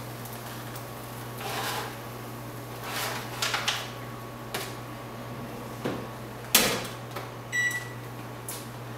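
Kitchen handling over the steady hum of a running microwave oven. A foil baking tray is slid off a wall-oven rack with rustling and clattering. About six and a half seconds in the oven door shuts, the loudest sound, followed by a short electronic beep.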